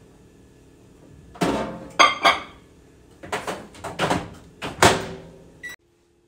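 Over-the-range microwave oven handled: its door opened and shut with several thunks and clacks, then its keypad pressed, with a short beep near the end.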